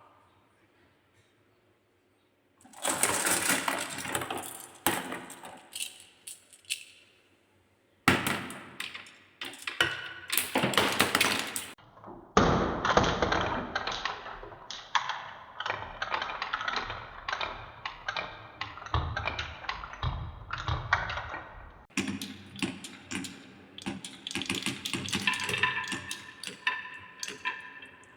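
Balls rolling and clattering down a wooden marble run: dense rapid knocks and rattles, in several stretches that start and stop abruptly.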